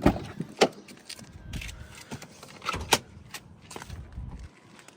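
A few scattered sharp clicks and knocks, the clearest about half a second in and again near three seconds, over a low background.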